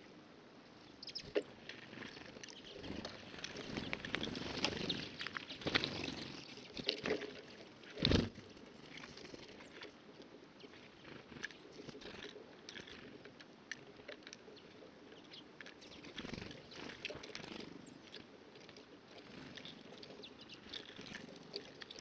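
Small birds feeding at a plastic tube seed feeder: scattered light taps, clicks and scrabbling of beaks and feet on the feeder, with one louder thump about eight seconds in.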